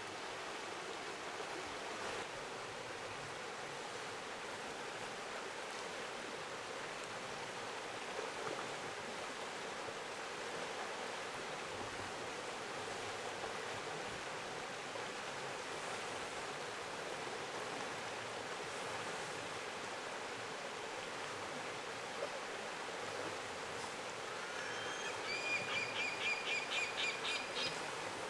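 River water rushing steadily. Near the end a bird gives a quick run of about a dozen repeated calls, about four a second.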